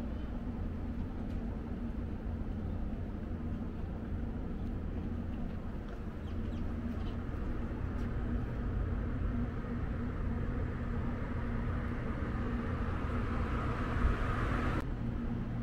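Steady low mechanical rumble with a constant hum running underneath. A hissy layer above it grows slightly, then cuts off suddenly near the end.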